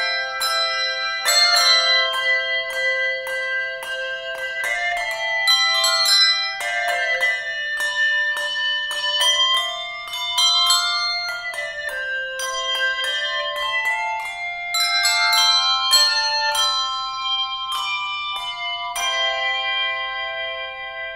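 Handbell choir playing a piece in chords and melody, many bells struck in quick succession and left ringing. About 19 seconds in, the last chord is struck and rings on, fading.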